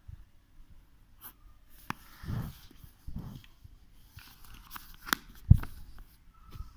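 Handling and writing sounds from a liquid-ink pen on notebook paper: scattered small clicks and soft rubbing. Near the end come a sharp click as the pen is pushed into its plastic cap, then a dull thump, the loudest sound, as the capped pen is set down on the notebook.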